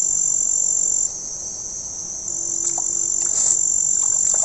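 Insects singing a steady, high-pitched trill that breaks off about a second in and starts again about a second later.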